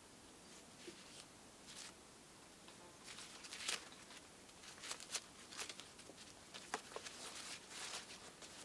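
Small sharp clicks and short rustles of a small handheld device and its cord being handled, starting about three seconds in over a faint, quiet forest background.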